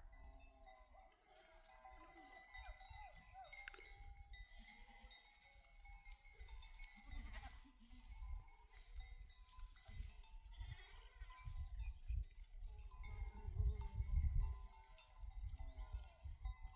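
A flock of sheep and goats bleating, with the ringing of animal bells, over a low rumbling noise that is loudest near the end.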